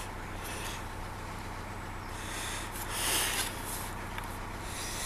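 Narrowboat's inboard engine running steadily with a low hum as the boat cruises. A few brief hissing rushes come over it midway, the loudest about three seconds in.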